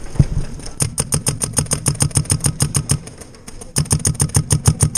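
A paintball marker firing in rapid strings, about ten shots a second, in two long bursts with a short pause about three seconds in. A low thump comes right at the start.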